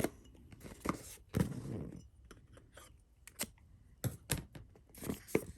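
Packaging being handled on a tabletop: a scattering of sharp clicks and snips with a short rustle a little over a second in.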